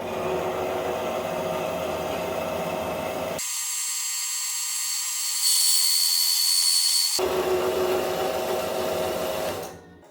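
Bandsaw running steadily as it cuts steel stock. A little over a third of the way in the sound switches abruptly to a thinner, high-pitched whine, then switches back near the end.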